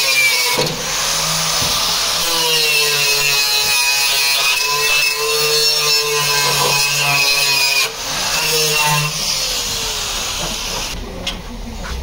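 Electric angle grinder grinding rust off the edge of a steel car door, its motor whine dipping and rising in pitch as it is pressed into the metal, over a harsh hiss. The grinding stops about a second before the end.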